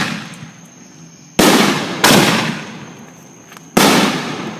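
Fireworks exploding: three loud bangs, the first two about half a second apart and the third under two seconds later, each trailing off in a long fading echo.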